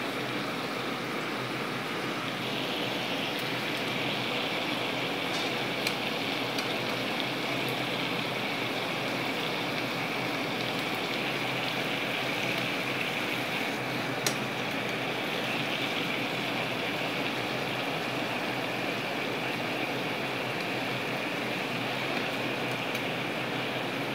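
Marinated salmon fillets sizzling steadily in hot oil in a frying pan over high heat, with a few sharp clicks of metal tongs against the pan.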